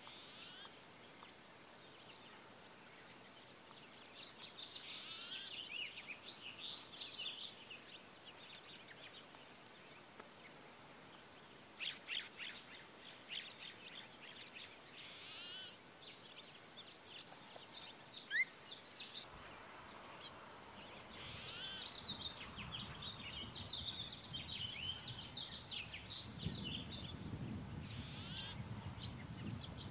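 Wild songbirds chirping and twittering in scattered bursts, with one short rising note, the loudest sound, about eighteen seconds in, which fits a female phainopepla's single-note call. A low rumble sets in about two-thirds of the way through.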